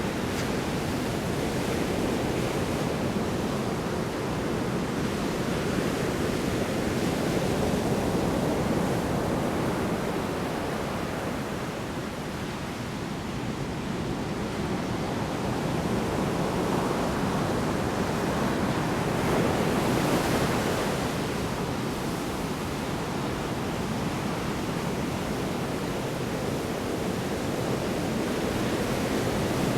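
Big storm waves breaking on a shore: a continuous rush of surf that swells twice and eases in a lull between.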